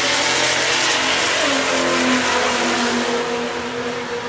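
Drag-race car engine at full throttle down the strip, its note dropping in pitch about halfway through as it passes, then fading.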